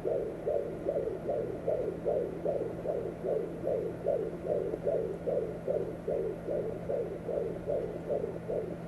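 Fetal heartbeat picked up by a home fetal Doppler and played through its speaker: a fast, even whooshing pulse at about two and a half beats a second, over a steady low hum.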